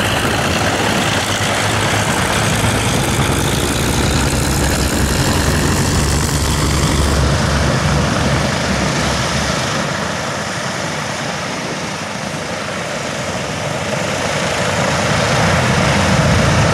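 Boeing B-17 Flying Fortress's four Wright Cyclone radial engines running at taxi power, a steady low drone with propeller noise; it dips a little past the middle and builds again near the end.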